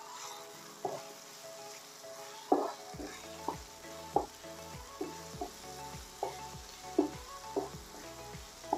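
Chicken and carrot strips sizzling in a frying pan while a wooden spoon stirs them, the spoon knocking against the pan about once a second, loudest about two and a half seconds in.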